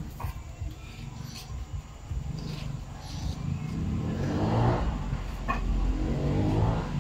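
A motor vehicle's engine passing, a low rumble whose pitch sweeps as it grows louder a little past halfway and again near the end.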